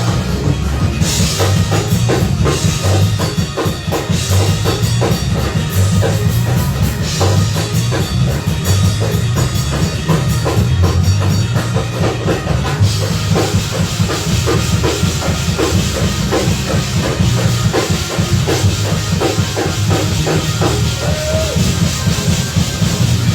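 Live church band playing an instrumental vamp led by a drum kit, with steady kick and snare hits over a heavy bass line.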